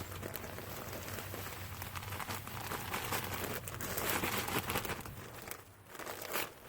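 Rustling and crinkling of a sweet potato grow bag and its soil being handled and dug through by hand, with a short lull near the end.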